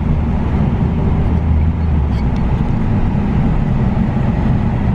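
Ford Focus ST's turbocharged four-cylinder engine running steadily while driving, a low drone with road noise.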